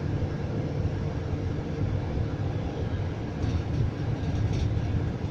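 Steady low rumble of a moving bus's engine and road noise heard inside the cabin, with a few faint light ticks or rattles a little past halfway.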